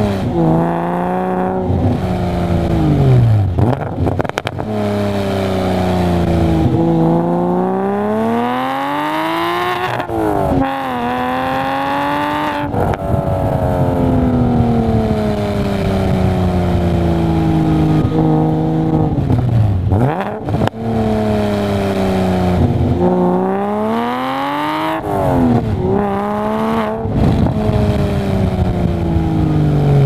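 2001 Porsche Boxster S's 3.2-litre flat-six through a custom exhaust with three Magnaflow mufflers, heard close to the tailpipe while driving. The exhaust note climbs in pitch as the car pulls and drops sharply at gear changes and lift-offs, again and again.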